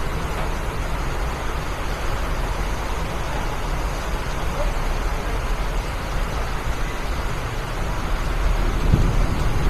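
Steady rain: a dense, even hiss with a low rumble underneath, getting slightly louder near the end.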